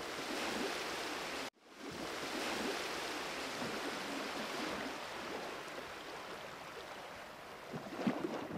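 Steady rushing outdoor background noise, cut off for a moment about a second and a half in.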